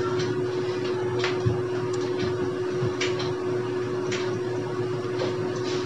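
Moong dal and spinach vadas sizzling as they deep-fry in hot oil in a kadhai, over a steady hum, with a few sharp clicks as a slotted spoon turns them.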